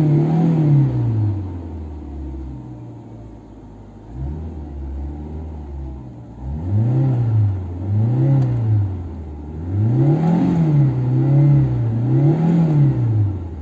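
Fiat Tipo 1.4 SX i.e. single-point-injection four-cylinder engine free-revving, heard from inside the car. It falls back from a rev at the start, idles for a few seconds, then is blipped about five times in quick succession, each rev rising and dropping back to idle.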